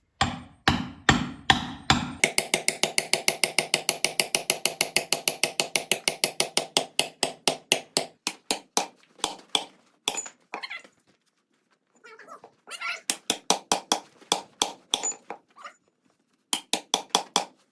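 Steel splitting wedge being driven into a tough wood round by rapid, ringing metal-on-metal hammer strikes. A few heavy blows come first, then a long fast run that fades out, a pause, and two more runs.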